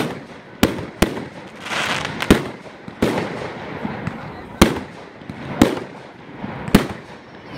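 Fireworks display: aerial shells bursting in sharp bangs, about eight of them at uneven intervals, each with a short echoing tail, and a brief hiss about two seconds in.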